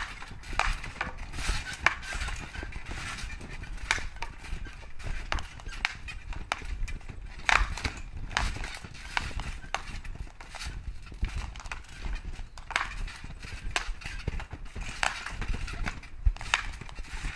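Hockey stick striking hard hockey balls in quick, irregular sharp knocks, several a second and of varying strength, with dull thudding from bouncing on a trampoline mat.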